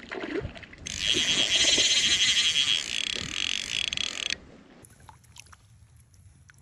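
Fly reel buzzing with rapid clicks for about three seconds as line moves through it with a hooked fish on, then stopping suddenly.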